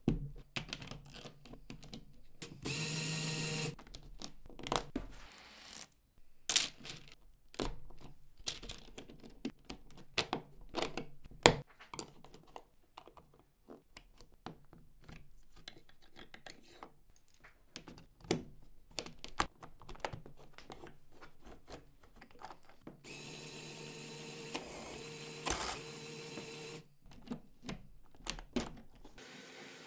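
Plastic LEGO bricks and Technic parts being pressed and snapped together on a baseplate: an irregular run of small clicks and taps. There is a steady mechanical noise for about a second early on and for a few seconds near the end.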